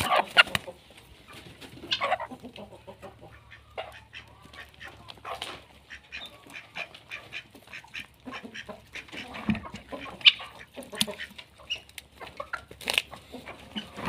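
Mixed flock of chickens and ducks calling: irregular clucks and quacks, with a few louder calls now and then.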